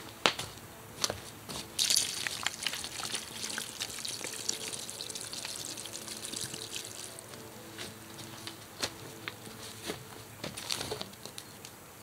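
Water poured from a plastic bottle into a cast-iron Dutch oven full of chopped vegetables and tomato juice: a steady splashing pour for about five seconds, with scattered clicks, then a few quieter clicks.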